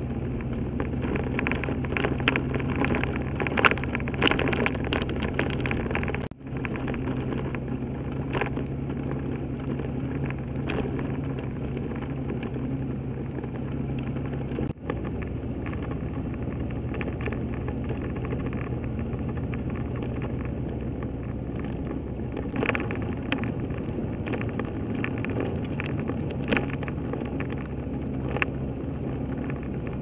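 A vehicle driving on a rough dirt track: a steady engine hum and road noise, with frequent sharp knocks and rattles from the bumps. The sound drops out for an instant twice.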